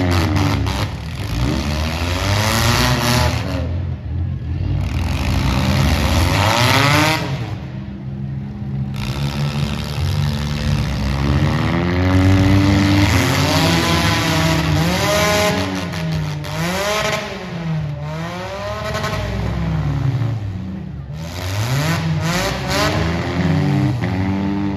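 Demolition derby car engines revving hard, their pitch rising and falling again and again as several cars accelerate and back off, with a few sharp knocks in the middle and near the end.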